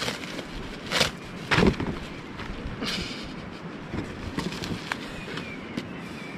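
Plastic packaging rustling and crinkling as a parcel is unwrapped by hand, with two louder crackles about a second and a second and a half in, and a few small clicks later.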